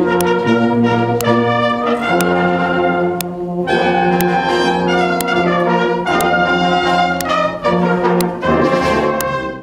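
Brass band playing slow, held chords that change about every second, with a sharp tap marking roughly each beat; it stops near the end.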